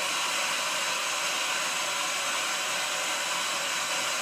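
Kitchen mixer tap running a steady stream of water into a sieve of quinoa set in a stainless steel bowl, filling the bowl: an even, unbroken hiss of falling water.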